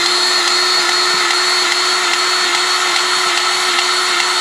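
Battery-powered grease gun running with a steady, even-pitched motor whine as it pumps grease into a suspension grease fitting.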